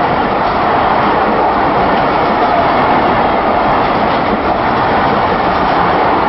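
Pakistan Railways passenger train rolling past, a steady loud rumble of wheels on rail and coaches.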